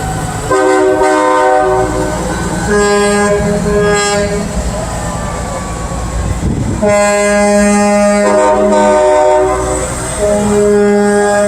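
Train air horn sounding four long chord-like blasts with short gaps between them, over a low engine rumble.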